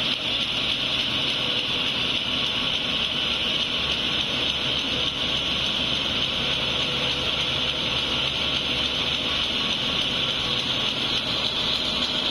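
Paper bag making machines running on the factory floor, giving a steady, unchanging mechanical whir with a hissy edge.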